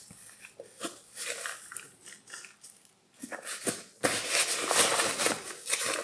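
Rustling and scraping of the pouch's nylon fabric and sewn-in label being handled, in short scattered rustles with a few small clicks, then louder and continuous over the last two seconds.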